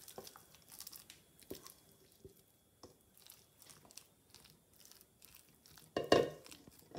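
Silicone spatula scraping mashed potatoes out of a stainless steel bowl into a ceramic serving dish and spreading them: soft scrapes and squishes, with a louder clatter about six seconds in.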